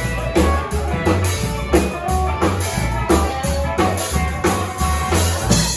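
Live rock and roll band playing: drum kit keeping a steady beat under electric guitar and a deep bass line.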